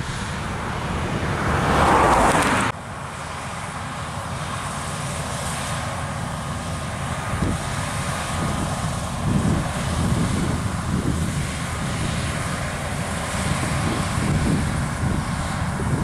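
Claas Lexion 7500 combine harvester running steadily while cutting and threshing barley, a constant low mechanical rumble with a faint steady whine. A louder rushing sound fills the first couple of seconds and stops abruptly.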